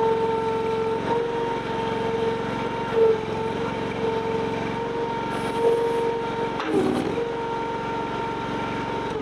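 Honda-powered mini skid steer engine running steadily with a high whine. The pitch briefly dips about seven seconds in, then holds steady again.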